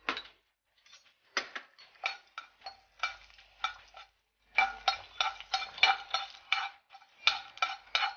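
A metal spoon clinking and scraping against cookware: a run of short ringing clinks, sparse at first and coming several a second from about halfway through.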